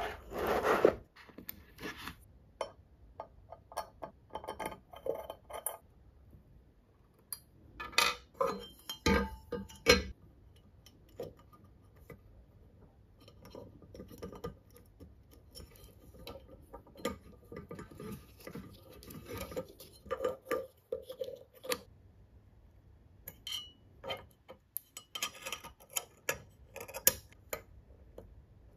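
Metal parts of a full-metal four-cylinder engine model kit handled and fitted by hand, giving a long string of irregular clicks, taps and clinks with light rubbing between them. Near the end a small screwdriver drives a screw into a metal plate.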